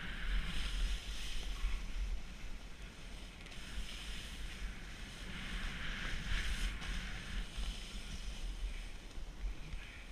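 Snowboard sliding over snow, a hiss that swells near the start and again about six seconds in, over wind rumbling on the helmet camera's microphone.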